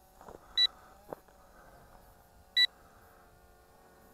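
Short, sharp electronic beep of the drone's low-battery warning, sounding twice two seconds apart: the flight battery is nearly depleted.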